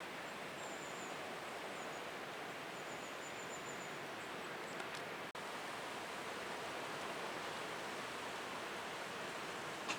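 Steady wash of calm sea waves on the shore, an even hiss with no distinct breakers. A few faint high chirps sound over it in the first few seconds.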